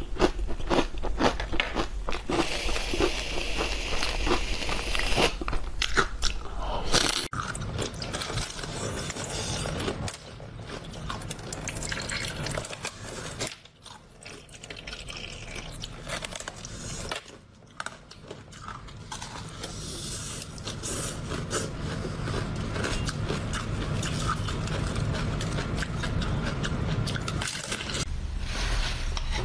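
Close-miked eating sounds: crunching bites and chewing of dried fruit and vegetable crisps, densely crackling at first, then quieter crunching and chewing of a frozen ice block.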